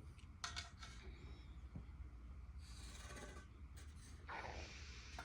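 Small clicks and scraping, rubbing noises from hands working metal parts as ceiling-fan blades and their screws are fitted.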